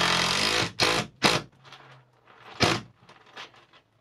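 Cordless drill driving a screw into a wooden cleat: one long run of the drill at the start, then shorter trigger bursts about a second in and again near the middle.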